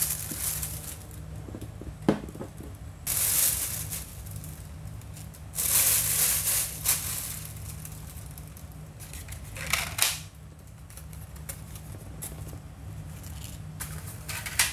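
Plastic carrier bag rustling and plastic takeout boxes and sauce cups being handled and set down on a wooden table, in several short bursts with a sharp knock about two seconds in.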